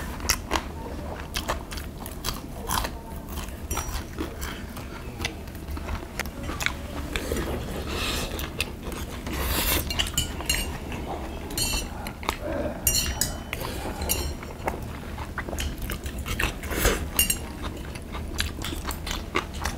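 People eating: chewing and biting, with metal chopsticks and spoons clicking against brass dishes in many short, sharp clinks.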